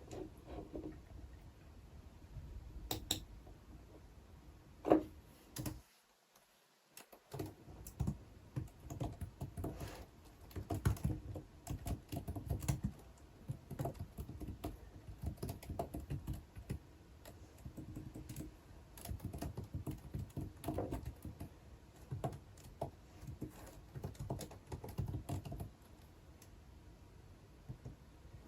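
Typing on a computer keyboard: irregular runs of keystrokes with short pauses, broken by a brief silence a few seconds in, then steady typing through most of the rest.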